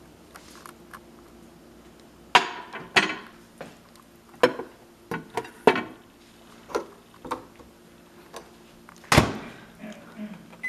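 A microwave oven being loaded: a run of sharp knocks and clinks as a dish is handled and set inside, then the door shut with a loud thud about nine seconds in. A short keypad beep sounds at the very end.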